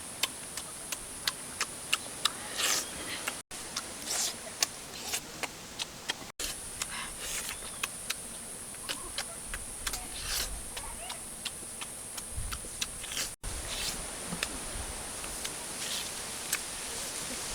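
Close-up eating sounds: chewing with sharp, irregular mouth clicks and lip smacks, over a steady high-pitched hiss. The sound cuts out briefly three times.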